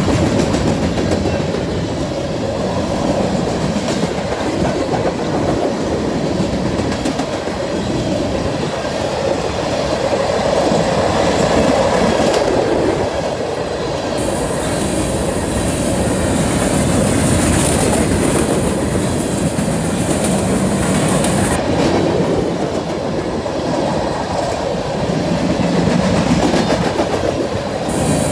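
Freight train of covered hopper cars rolling steadily past, with the loud, continuous rumble and clatter of steel wheels over the rails. A high-pitched squeal joins in about halfway through, stops some seven seconds later and returns near the end.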